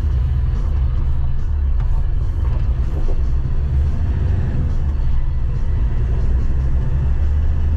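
A Troller 4x4 driving, heard from inside the cabin: a steady low rumble of engine and road noise.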